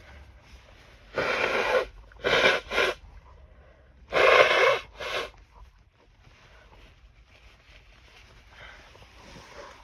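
A person sneezing hard several times in two quick clusters, harsh noisy bursts about a second in and again about four seconds in. The sneezes are brought on by bedding dust irritating the nose.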